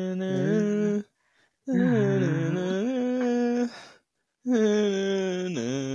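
A man's voice singing a wordless tune in three long, drawn-out phrases with short breaks between them.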